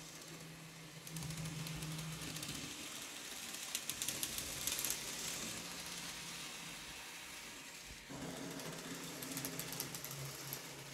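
Kato N-scale Union Pacific Big Boy model locomotive running on the layout track: the small motor and gears whir steadily, with stretches of rapid wheel clicking over the rails about four seconds in and again near the end.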